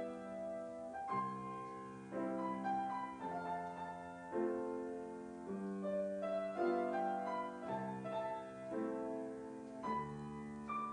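Background piano music: gentle held chords that change about once a second.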